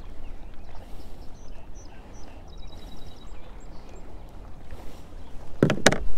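Steady low rumble of wind and river water around a small fishing boat, with faint high chirps in the middle. Two loud knocks come near the end.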